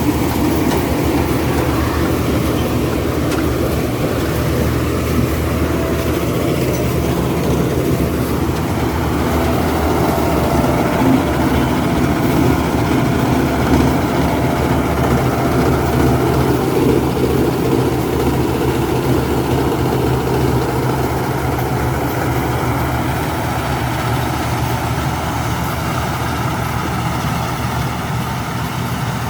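Rice combine harvester running steadily: a low engine hum with a band of mechanical noise over it, easing slightly near the end.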